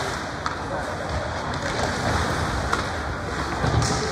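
Crowd and game noise in an ice hockey rink: a steady hubbub of distant voices with a few sharp knocks, about half a second, two and a half seconds and near the end.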